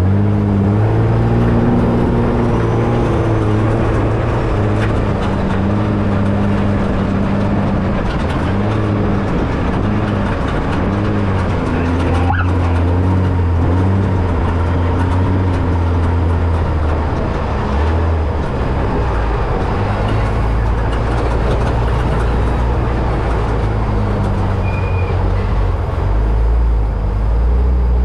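Ford EcoBoost engine of an off-road trophy truck running hard, its pitch rising and falling with the throttle and dipping briefly several times, over a steady rush of noise.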